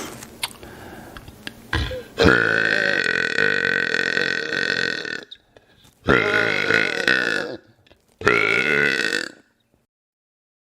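A man burping loudly three times: one long, drawn-out burp of about three seconds, then two shorter burps of about a second each with brief silences between them.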